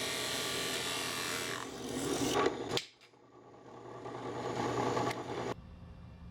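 Drill press boring into a hardwood ball, a steady grinding of bit on wood. It stops sharply about three seconds in, then the machine-and-wood noise builds up again and cuts off abruptly near the end, leaving a low hum.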